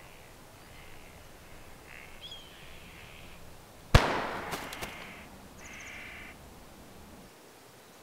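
Crows cawing a few times, and about four seconds in a single loud gunshot that echoes and dies away over about a second.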